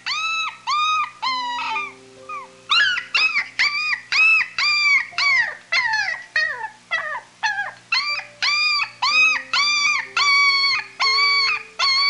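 Puppy giving a rapid string of short, high-pitched yelping whines, about two a second, over soft background music.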